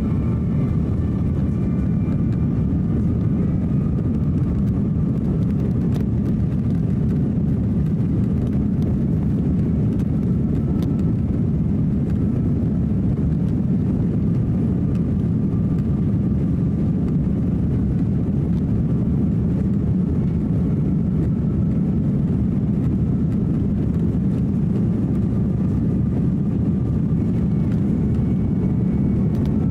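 Cabin noise of an Airbus A330-300 with Rolls-Royce Trent 700 engines taxiing. A steady low rumble from the engines at taxi power and the rolling airframe, with a faint steady engine whine above it.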